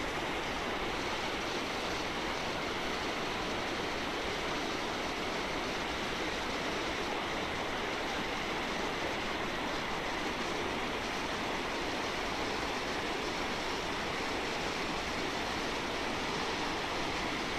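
Vernal Fall and the Merced River's rapids cascading over granite boulders: a steady, unbroken rush of water.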